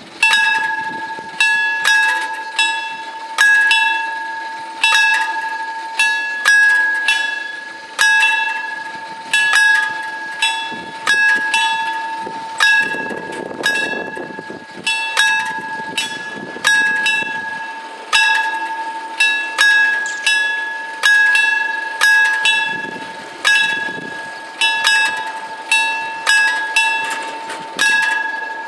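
Warning bells of an Italian FS 64-type level crossing ringing as the crossing closes, with repeated metallic strikes about once a second that each ring on. They start suddenly and signal that a train is approaching.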